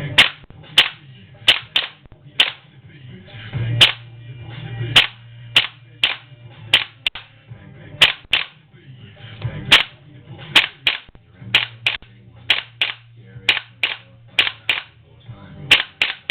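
Tokyo Marui gas blowback airsoft pistols firing about two dozen sharp shots at an uneven pace, often in quick pairs, over faint background music.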